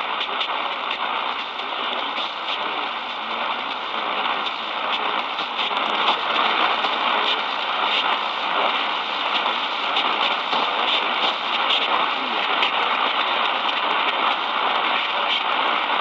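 AM radio static from the speaker of an Eton Elite Traveler portable radio tuned to an AM station: a steady, crackling hiss with no voice, right after an emergency alert's two-tone attention signal has ended. It gets a little louder about six seconds in.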